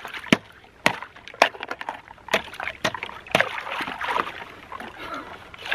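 Ice being broken to get at water: a series of sharp knocks, roughly two a second, with water sloshing and splashing between them.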